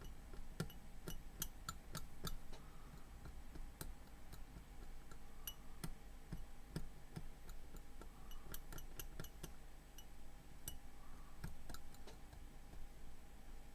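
Faint, irregular small metal clicks and taps of a tool working a tiny capacitor off a phone logic board, over a low steady hum.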